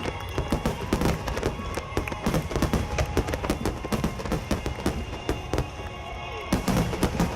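Aerial firework shells bursting and crackling in quick succession, with music underneath. The bursts thin out about five seconds in, then come thick again near the end.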